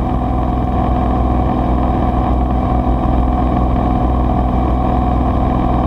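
Cirrus SR22T's turbocharged six-cylinder Continental engine and four-blade propeller running steadily in flight, a constant drone with a steady low hum.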